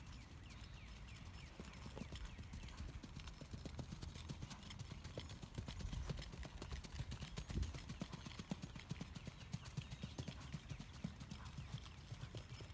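Shod hooves of a two-year-old bay single-footing filly in keg shoes striking a dirt track in a quick, even four-beat run of footfalls. The footfalls grow louder toward the middle and ease off near the end.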